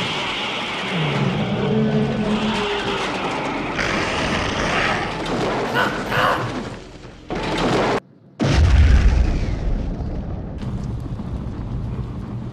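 A dense, noisy mix of sound effects, then after a brief dead silence about eight seconds in, a loud dynamite explosion boom, deep and heavy, trailing off into a low rumble.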